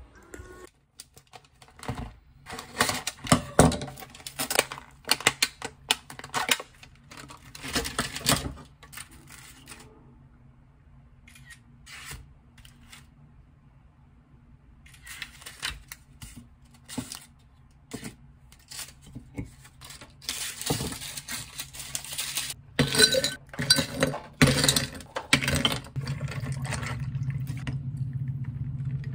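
Plastic food trays rustling and crinkling, with light taps and clinks of dishes and glass on a stone countertop, in two busy stretches. A steady low hum starts near the end.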